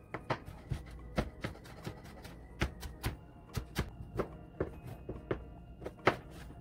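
Kitchen knife knocking on a plastic cutting board while cilantro is chopped and a lime is cut, in irregular knocks roughly two or three a second. One knock about six seconds in is louder.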